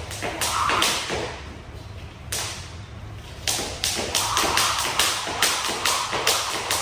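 Jump rope whipping through the air and slapping a wooden floor, with feet landing. A few scattered strikes come first, then from about halfway a steady rhythm of roughly two to three strikes a second.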